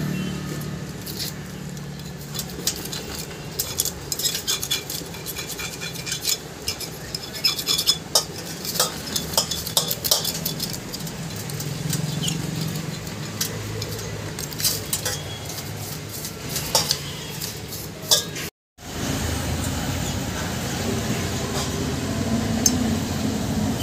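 A motorcycle cylinder head and its small metal parts clinking and scraping against a steel basin as they are washed in petrol, in quick irregular clinks. The clinking stops abruptly about three-quarters of the way through, giving way to a steady low background noise.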